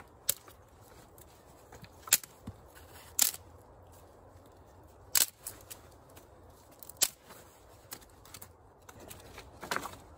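Dry wooden sticks being snapped by hand into kindling: about six sharp cracks, one every second or two, with light rustling of the sticks between them.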